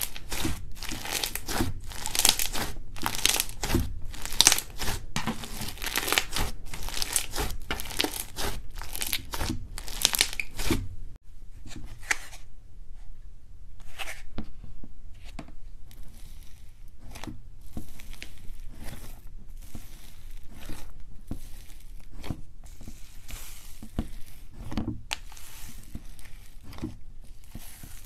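Fluffy slime mixed with foam beads being stretched and pulled apart by hand, giving a dense run of crinkly, crackling pops. After a break about 11 seconds in, quieter and sparser crackles and soft pops come as fluffy slime is pressed and poked in a plastic tub.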